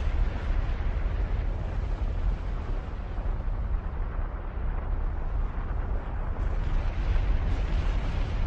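Mayon volcano erupting with lava fountaining from its summit: a steady, deep rumble with no separate blasts.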